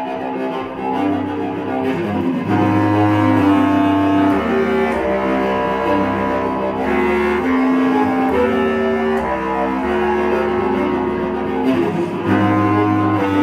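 Bass clarinet and bowed cello playing together in long held low notes that change pitch every second or two; the music gets louder about two and a half seconds in.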